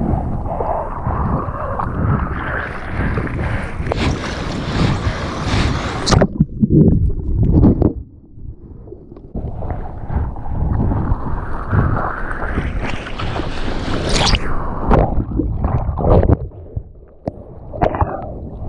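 Water rushing and splashing over a surfboard deck right at a board-mounted action camera, with wind buffeting the microphone. The rush fades about a third of the way in, then builds again, with separate short splashes in the middle and near the end as the surfer paddles by hand.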